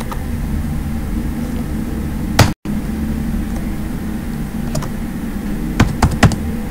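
A few computer keyboard keystrokes, one about a third of the way in and a quick cluster near the end, over a steady low background hum; the sound drops out completely for an instant about halfway.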